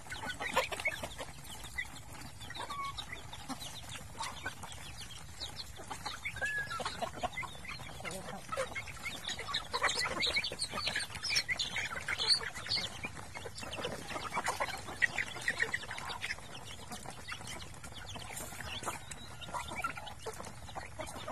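A flock of chickens clucking in a constant overlapping chatter while crowding together to feed, busiest about halfway through.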